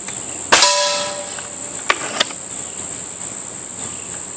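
A Beeman RS2 .22 break-barrel spring-piston air rifle fires about half a second in, and the pellet's hit on a frying pan target rings out for nearly a second. Two light clicks follow about a second later, over a steady high insect drone.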